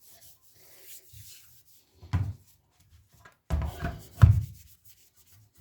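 Rag wiping a receiver's power transformer with isopropyl alcohol: soft rubbing, broken by dull knocks about two seconds in and a cluster of louder ones around three and a half to four seconds.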